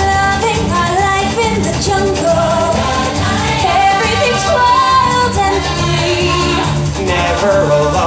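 Pop song with a sung vocal melody over bass and accompaniment.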